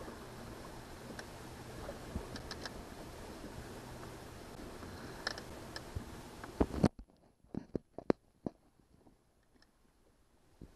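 A boat trolling slowly on its Yamaha outboard at about 1200 RPM. A steady rush of engine, water and wind with a faint low hum runs with scattered clicks and knocks. About seven seconds in, the rush cuts off abruptly, leaving only a few sharp clicks.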